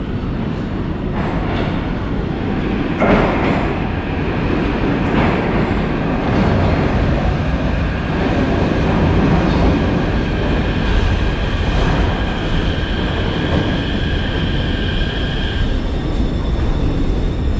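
Kyiv metro train arriving at the platform: a loud, steady low rumble of the train running in from the tunnel. About two-thirds of the way through, a high whine joins as it slows and cuts off as the train comes to a stop.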